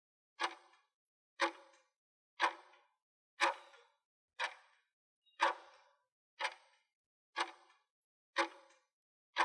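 Clock-tick sound effect of a countdown timer: nine short, sharp ticks, one each second.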